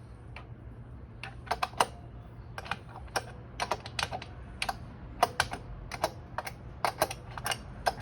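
Sharp metallic clicks, irregular and about two a second, from a hand wrench turning the belt tensioner adjuster on a Zero SR electric motorcycle's rear wheel, over a steady low hum.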